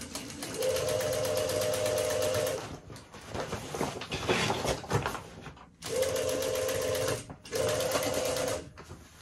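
Industrial sewing machine running in three short bursts of steady stitching, stopping and starting between them. In the pauses, a stiff, crinkly sheet of material rustles as it is pulled and repositioned under the needle.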